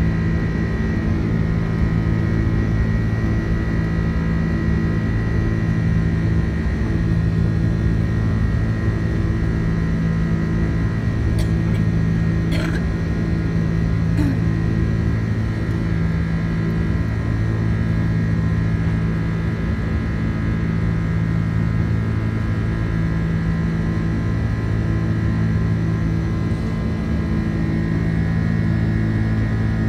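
Airliner cabin noise during takeoff: the jet engines and rushing air make a loud, steady drone with a low hum and a higher whine. A few faint clicks from the cabin fittings come about halfway through.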